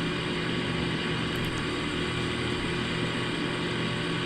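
Payne PH13 heat pump outdoor unit running steadily through its defrost cycle: an even mechanical whir with a constant low hum.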